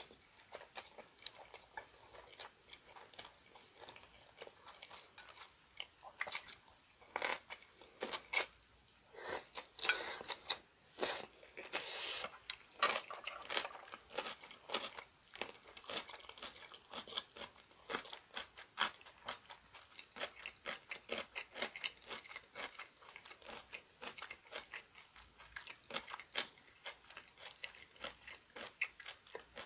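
A person chewing food close to the microphone: a steady run of small crunches and mouth clicks, loudest and densest from about six to thirteen seconds in.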